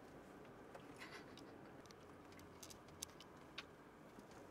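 Near silence: faint low background hush with a few soft, irregular clicks.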